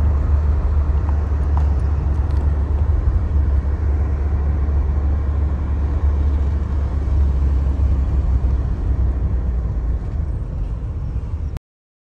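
Steady low rumble of a moving car's engine and tyres heard from inside the cabin, cutting off suddenly near the end.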